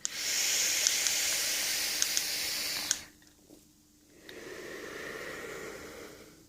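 A draw on a rebuildable tank atomizer with a Clapton coil: about three seconds of airy hiss with a few crackling pops as the coil fires, then after a short pause a softer breathy exhale lasting about two seconds.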